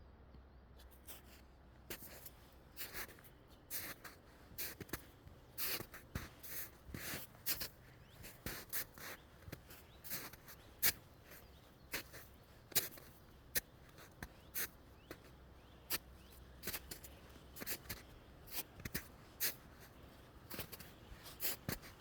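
Irregular scratching and rustling: short clicks and scrapes, a few each second, uneven in loudness.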